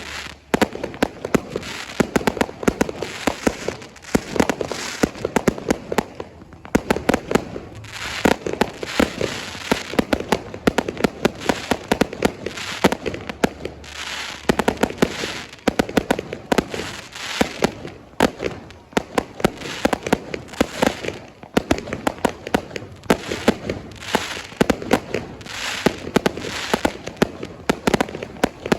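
Fireworks display: a dense, continuous string of rapid bangs and crackling.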